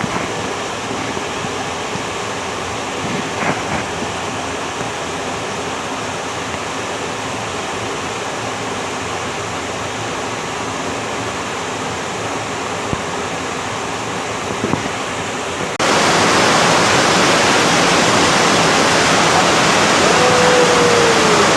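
Rushing water of a waterfall, a steady even rush that jumps suddenly louder about sixteen seconds in. A short falling whistle sounds near the end.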